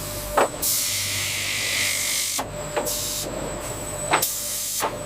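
Factory machine noise: a loud hiss of air rises about half a second in and stops about two seconds later. Sharp clicks and knocks come at uneven intervals, over a faint steady hum.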